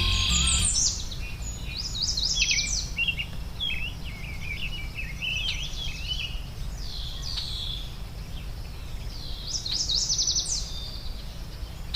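Several songbirds singing and chirping, with quick trills and whistled notes one after another, over a steady low background rumble.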